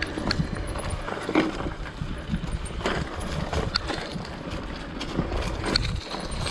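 Mountain bike riding fast down a dirt trail: tyres rolling over packed and loose dirt with a steady low rumble, and irregular knocks and rattles from the bike as it goes over bumps.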